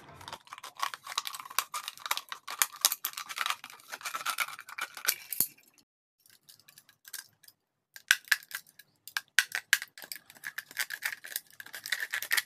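Utility knife blade cutting through a thin plastic water bottle: a rapid, crackling run of small clicks and scrapes. It stops for about two seconds midway, then starts again.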